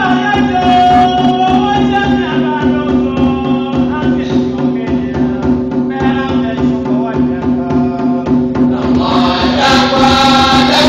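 Church choir singing together over a steady rhythmic beat, with held low tones beneath the voices.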